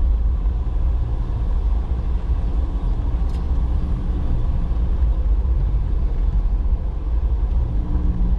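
Jeep Renegade 4x4 driving slowly over a rocky dirt trail: a steady low rumble of engine and tyres on rough ground.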